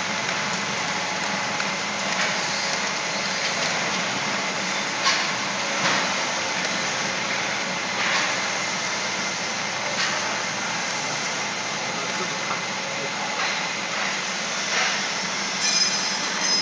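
Steady hum of running factory machinery, with a few short clicks and knocks from hands working the sealing film and mould plate of an automatic cup filling and sealing machine.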